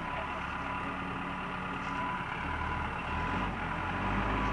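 Backhoe engine running steadily, its low rumble growing stronger about halfway through.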